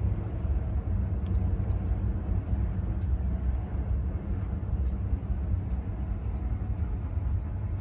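Search-and-rescue helicopter hovering: a steady low rumble.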